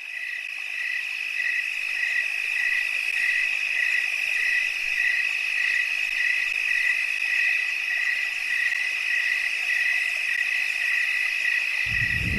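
A steady high-pitched tone with a second, slightly lower tone pulsing about twice a second, which the title calls a siren. Near the end it is cut across by a sudden loud burst of sound.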